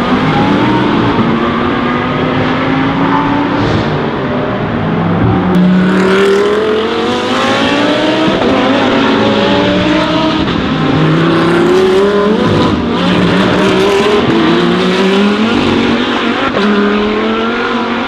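Several GT3 race cars with V10 engines, an Audi R8 LMS among them, driving past on a wet circuit. The engine notes rise through a series of quick upshifts and fall again as the cars brake and change down, over the hiss of tyres on the wet track.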